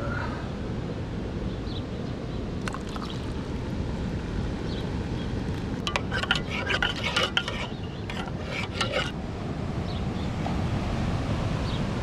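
A metal spoon stirring instant coffee in a steel mug, clinking against the sides in a quick run of taps between about six and nine seconds in. A steady low background rumble runs underneath.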